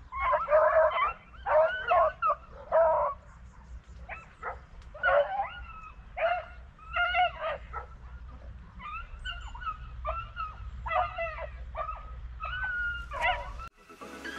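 Beagles baying on a rabbit's trail: several dogs giving tongue in short, repeated, pitched yelps and bays, sometimes overlapping. They cut off abruptly near the end.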